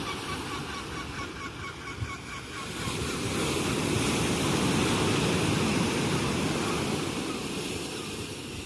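Ocean surf: a wave builds and breaks on the shore, swelling to its loudest in the middle and easing off near the end. Over the first two seconds or so, a seagull calls in a rapid run of short notes.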